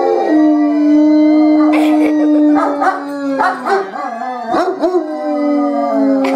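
Two dogs howling in response to a wailing fire siren: long held, slightly falling howls overlap one another, broken by short yipping calls.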